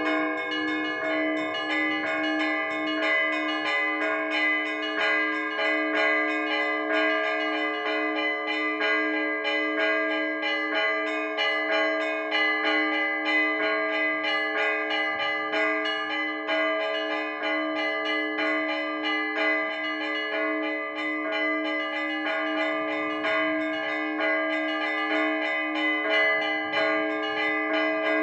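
Orthodox church bells rung in a full peal: quick, dense strokes on the small bells over a lower bell struck at a steady rhythm, the tones overlapping and ringing on.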